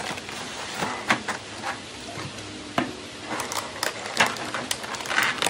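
Handling of a cardboard box and a clear plastic parts tray: irregular taps, scrapes and crinkles, busier in the second half as the tray is lifted out.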